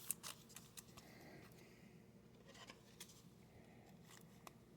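Faint clicks and light scrapes of trading cards being handled, a few sharp ticks in the first half-second and single ones scattered after.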